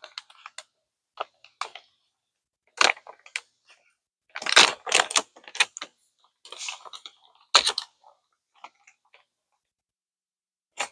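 Foil-lined toy blind bag being handled and torn open, crinkling in short scattered crackles with quiet gaps between, the loudest a little before halfway.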